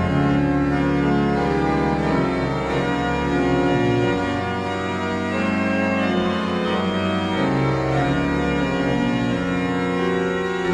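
Organ-like keyboard music: sustained chords that change every second or two over a low bass line.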